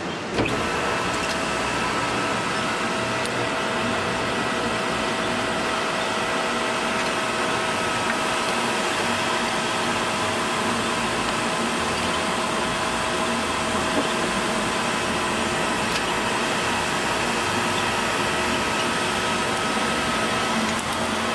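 Winch motor running steadily with a constant whine, hauling a bungee jumper back up on the cord. It starts about half a second in.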